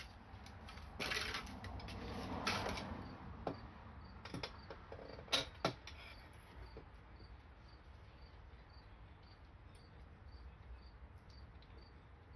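Metal parts scraping and clinking in the first six seconds or so, two longer scrapes followed by a few sharp clicks, as the steering stem with its new bearings is worked back into the motorcycle frame. After that only faint, regular cricket chirps remain.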